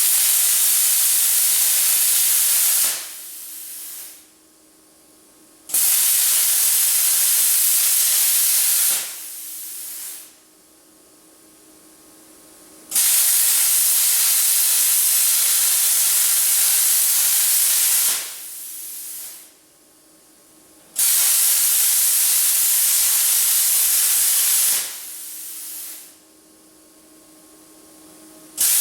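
Lotos 5000D plasma cutter cutting 1/8 inch diamond plate steel, a loud steady hiss of the arc and air jet. It comes in five runs of about three to seven seconds that start sharply, each ending in a brief quieter hiss before cutting out, as the cut is made freehand in short passes.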